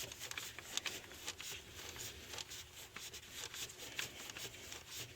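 Faint scattered clicks and light rubbing: small metal parts and tools being handled while the new solenoid valve and its socket are threaded in by hand.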